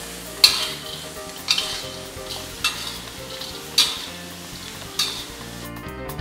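A spatula stirring and scraping leafcutter ants (bachacos) as they toast in a frying pan, with a sizzling stroke about once a second, five strokes in all.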